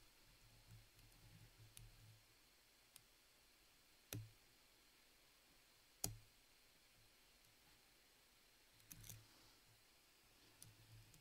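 Faint clicks and ticks of a lock pick working the side pins of an ASSA Twin 6000 cylinder under a tension wrench, with two sharper clicks about four and six seconds in.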